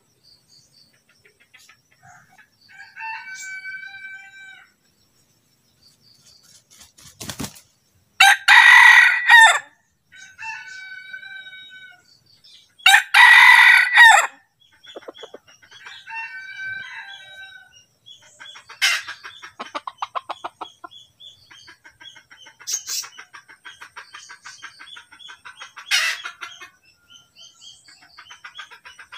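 Red junglefowl rooster crowing twice, each crow loud and about a second and a half long, with softer short pitched calls and clucking between and after.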